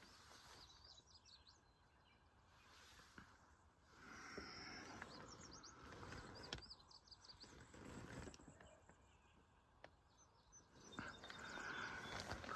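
Faint birdsong: small birds chirping in short, high, quick phrases every few seconds, over a soft outdoor wash of noise that swells about four seconds in and again near the end.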